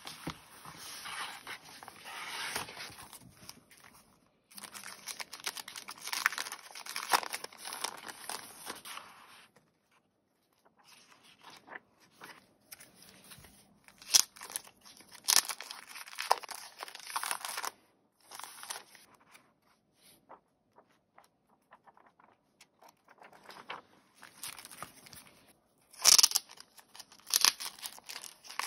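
Close paper rustling as a Traveler's Notebook and its paper refills are handled: pages turned and flicked, inserts slid about, in spells with short pauses between them. Near the end come a few sharp snaps and the crinkle of a refill's cellophane wrapping.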